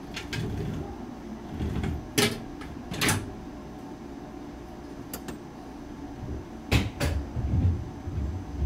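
Knocks and thuds inside a JR West 223 series electric train car standing at a station just before departure, typical of the doors closing. Several short sharp knocks, the loudest about two and three seconds in and a close pair about seven seconds in, over a low rumble.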